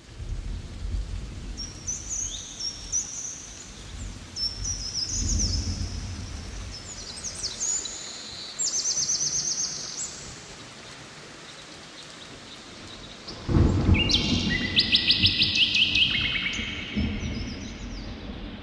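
Birds chirping and trilling over a steady rain-like hiss with low rumbles. A louder rush of noise comes in about three-quarters of the way through, with more chirps and a fast trill above it.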